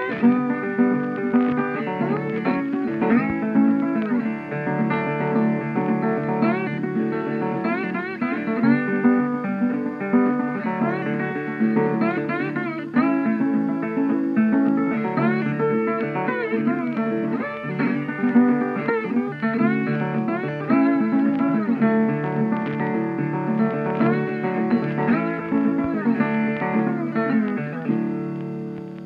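Instrumental background music with bending, sliding notes, fading out near the end.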